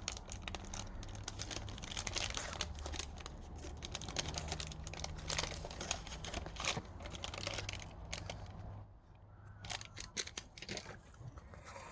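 Crinkling and tearing of a baseball card pack wrapper and the cards inside being handled, a busy rustle that thins to a few scattered clicks about nine seconds in.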